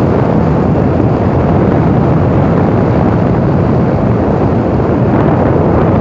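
Loud, steady wind buffeting the microphone of a bicycle riding fast along an asphalt road.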